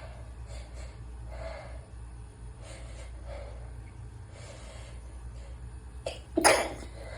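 A person's sneeze build-up: several short, hitching in-breaths, a brief catch about six seconds in, then one loud sneeze just after it.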